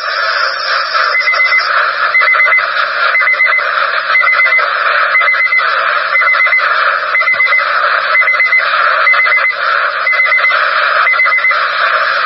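Weather radio alert alarm: a short cluster of rapid beeps repeating about once a second over steady radio hiss, sounding for a severe thunderstorm warning before the bulletin is read.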